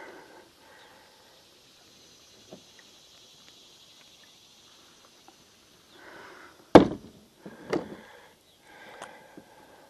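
Handling noises in a kayak: a faint steady hiss, then one sharp, loud knock about two-thirds of the way in, a smaller knock just after, and some rustling.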